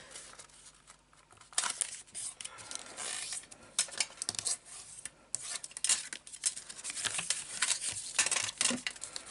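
A square of craft paper being folded diagonally and creased flat: irregular rustles and short scrapes of paper, partly pressed along the fold with a bone folder.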